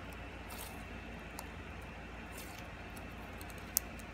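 Slime being squeezed and kneaded by hand: quiet squishing with a few brief crackles and one sharp click near the end.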